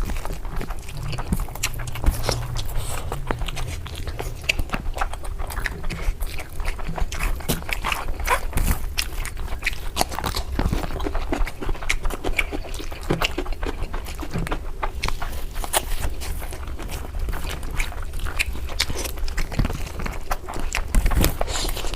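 Close-miked eating sounds: wet chewing, lip smacking and biting of curry and meat, with many quick irregular clicks and snaps.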